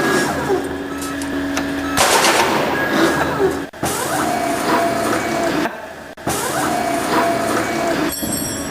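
Oval filter cage welding machine (ZGTEK DLN-12B) running: steady machine noise with surges of hissing noise, about a second each, a couple of times. The sound cuts out briefly about four and six seconds in.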